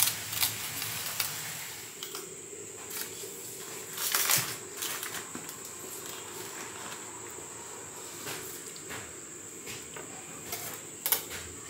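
Aluminium foil rustling and crinkling and metal tongs clicking against a plate as roasted fish pieces are lifted out. The loudest crinkle comes about four seconds in, with a couple of sharp clicks near the end. A steady high-pitched whine runs underneath.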